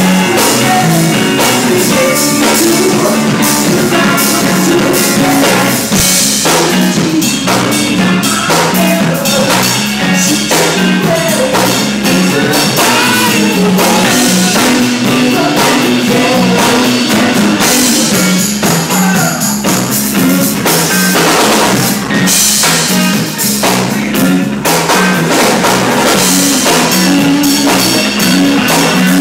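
Live band of electric guitars and a drum kit playing loud rock, with a moving bass line and repeated cymbal crashes.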